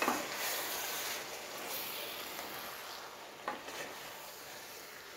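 Wooden spatula stirring a thick mix of vegetables and coconut paste in a non-stick wok over a steady sizzling hiss. The spatula knocks lightly on the pan at the start and again about three and a half seconds in.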